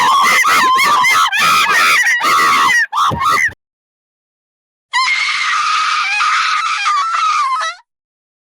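Monkeys screaming: a rapid run of shrill calls that bend up and down in pitch and cut off about three and a half seconds in. After a short gap, a person lets out one long scream of nearly three seconds.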